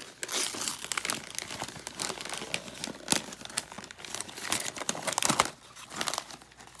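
Wrapping paper and cardboard toy packaging crinkling and rustling as a toddler handles an opened present, an irregular run of crackles with a few sharper ones about three seconds in and again after five seconds.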